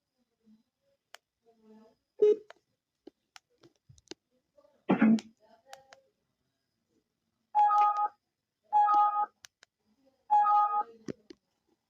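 Portable Bluetooth speaker's built-in prompt tones: three beeps, each about half a second long and made of two steady notes sounding together, about a second and a half apart, after a few clicks and two short louder sounds earlier on.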